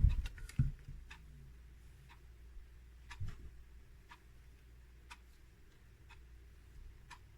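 Clock ticking faintly and evenly, about once a second, over a low steady hum. A couple of soft thumps come in, one near the start and one about three seconds in.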